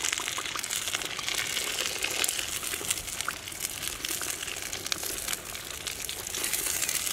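Dense, steady crackling with wet, sloppy sounds as a rat carcass is dipped and worked in a wok of hot muddy slurry over a small wood fire.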